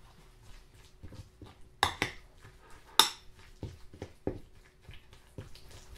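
Metal fork stirring chunky guacamole in a glass bowl: irregular soft clinks and scrapes of the fork against the glass, with two sharper clinks about two and three seconds in.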